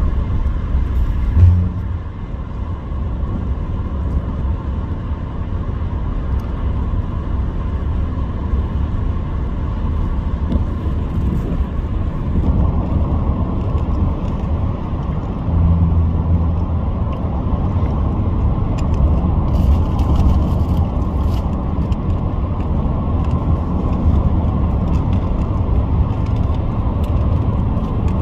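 Steady low road and engine rumble inside a car cruising on a highway, with a single sharp thump about a second and a half in.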